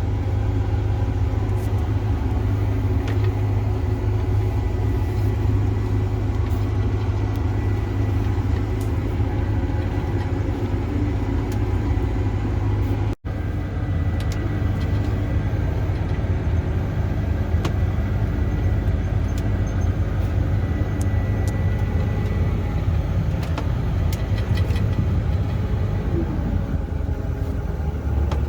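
Combine harvester's engine and machinery running steadily, heard from inside the cab while driving with a full grain tank: an even low drone with a faint high whine, cut off for an instant about halfway through.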